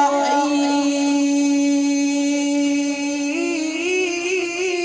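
A man's voice reciting the Quran in melodic tajweed style, holding one long steady note for about three seconds and then moving into a wavering, ornamented phrase.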